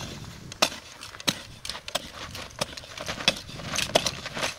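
Steel blade of a U.S. military tri-fold entrenching tool (Ames) used as a hoe, chopping and scraping into dry, dusty dirt in quick strokes, about two a second.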